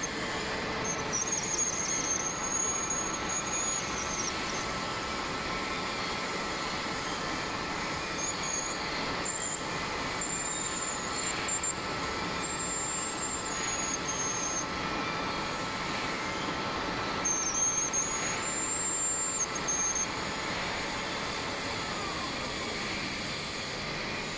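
Metal lathe running, with a carbide-insert tool turning a small metal bar: a steady machine hum with high-pitched squeals from the cut that come and go several times.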